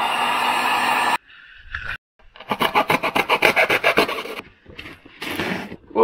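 Heat gun blowing steadily for about a second, shrinking heat-shrink tubing over a wire connection, then cut off abruptly. After a short gap comes a rapid rhythmic rubbing, about seven strokes a second for two seconds.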